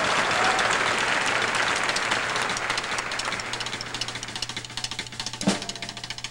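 Snare drum played in a very fast, continuous roll that slowly gets quieter, with a single loud hit near the end.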